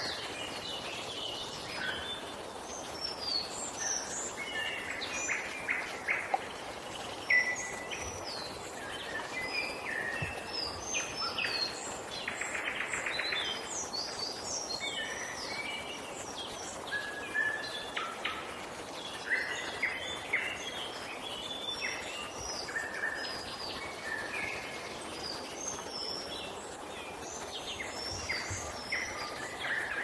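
Several woodland songbirds singing and calling over one another, a steady stream of overlapping chirps, whistles and short phrases, with a short buzzy trill about twelve seconds in, over a faint steady background hiss.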